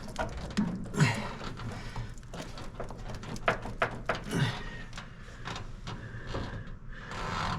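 Scattered clicks, knocks and light scrapes of hands and tools working a part loose on a truck, with the loudest knock about a second in and a few more sharp clicks around the middle.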